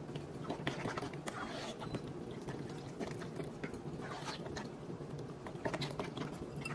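Spoon stirring thick, creamy macaroni and cheese in a pot: irregular wet squelches and light clicks of the spoon against the pot, over a steady low hum.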